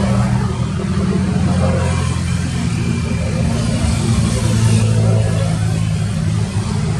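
A ship's engine running steadily and loud, with a deep, even hum and a noisy wash over it.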